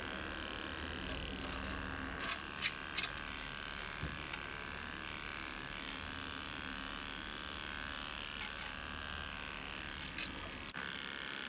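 Electric dog grooming clippers running steadily as they are drawn through a terrier's coat, with a few sharp clicks about two to three seconds in.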